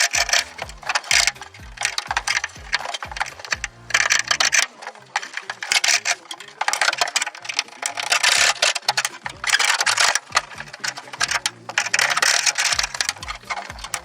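Background music with a steady bass beat that drops out for several seconds in the middle and returns near the end.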